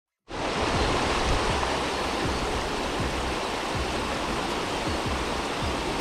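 Wind buffeting the microphone: a steady, loud rushing noise with irregular low thumps underneath.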